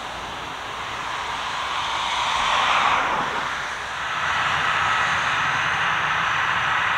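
Aircraft engine noise: a loud rush that swells to a peak about three seconds in and eases off, then holds steady with a faint whine.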